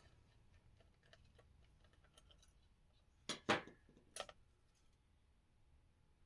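Light clicks and taps of small laptop parts being handled during heatsink removal, with three sharper clicks a little past halfway.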